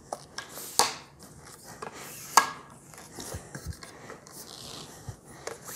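A tripod being handled and set up: two sharp knocks, about a second in and about two and a half seconds in, with softer knocks and rubbing noise between.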